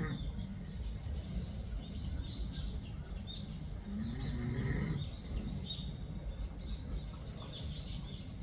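Cat snoring: a single pitched snore that rises and falls, about halfway through, over steady low background noise. Birds chirp faintly throughout.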